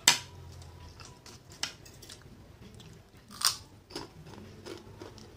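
Close-miked eating of fried instant noodles: soft chewing, with a few sharp clinks of a spoon and fork against the plate. The loudest clink comes right at the start and rings briefly; others come about one and a half and three and a half seconds in.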